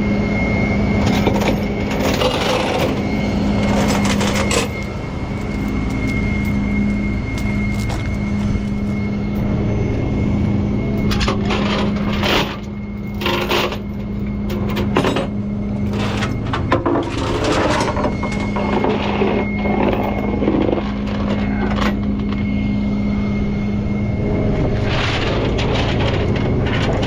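Tow truck engine running steadily, over it a series of sharp metallic clanks and rattles, bunched about halfway through and again near the end, as chains and J-hooks are handled to secure a wrecked pickup on the rollback bed.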